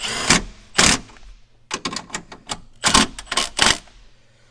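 Cordless impact driver hammering in several short rattling bursts, with light clicks between them, as it drives a mounting screw home.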